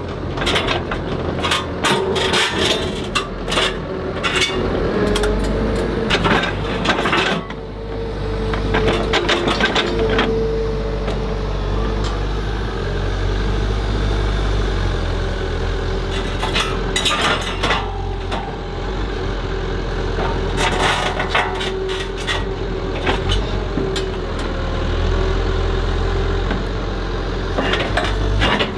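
Komatsu HB 215 LC hybrid excavator running steadily, its engine hum and hydraulics carrying a steady whine, while the grapple handles boulders. Clusters of knocks and clatter of rock on rock and on the steel grapple come every few seconds.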